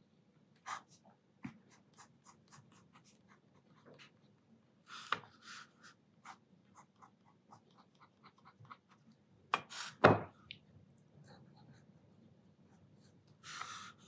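Pigma Micron fineliner pen scratching and ticking across watercolour paper in many short strokes and dots, with a few louder clicks about five seconds in and around ten seconds in.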